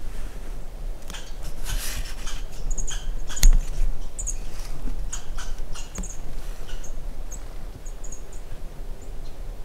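Black bear moving through brush: leaves rustling and twigs snapping, with one sharp crack about three and a half seconds in. Short high-pitched chirps come and go throughout.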